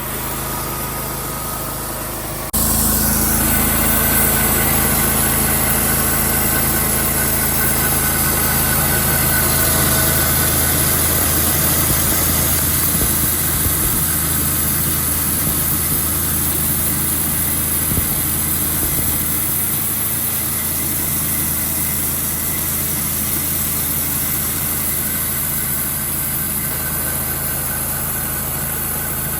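Sawmill engine running, then about two and a half seconds in the sound jumps suddenly louder and holds steady, typical of the blade cutting through a cedar log.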